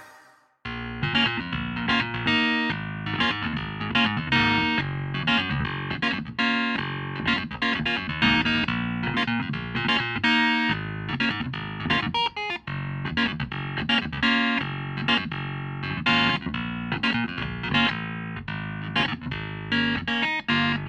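Spectrasonics Keyscape keyboard patch played as a run of short, quickly decaying notes and chords, with a guitar-like, effected tone. It starts after a brief silence about half a second in.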